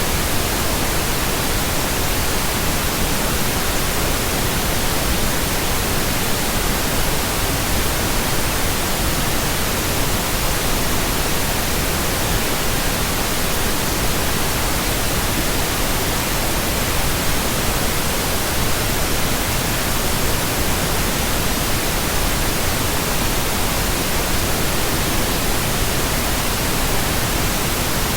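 Steady synthetic pink noise: an even hiss across the whole range, unchanging throughout.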